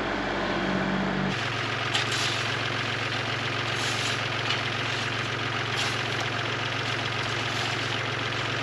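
Compact tractor engine running steadily, its note dropping lower about a second in, with a few short sharp sounds over it.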